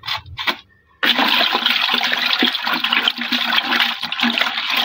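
Water sloshing and churning as a hand stirs insecticide into water in a bucket, making the soaking solution for yam minisets; it starts abruptly about a second in and goes on steadily.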